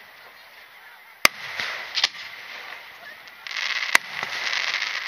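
Aerial firework shells bursting in a starmine barrage: sharp bangs about a second and a quarter in, a quick double bang around two seconds and another near four seconds, with a dense hiss setting in at about three and a half seconds.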